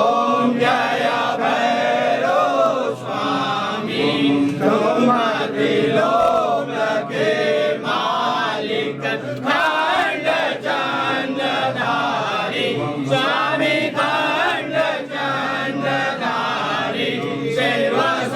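Devotional chanting used as background music: voices singing a Hindu mantra in a continuous, drawn-out melody.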